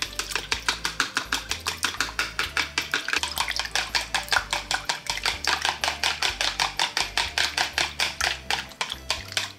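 Wooden chopsticks beating eggs and water in a plastic bowl, clicking quickly and evenly against the bowl at about six strokes a second: whisking the egg-and-water base for tempura batter.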